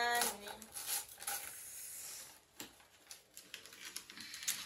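Paper and a gift bag rustling and crinkling in short irregular bursts as a present is unwrapped by hand. A brief drawn-out voice sound fades out about half a second in.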